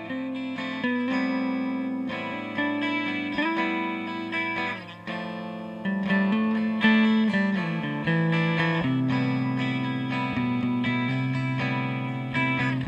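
Outro music: a guitar playing picked notes and chords, a new note struck about once a second and ringing out.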